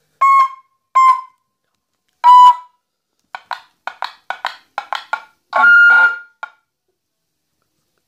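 Six-mode motorcycle police siren and horn unit, worked from its handheld controller: three short horn beeps, then a quick run of short chirps, then one longer tone.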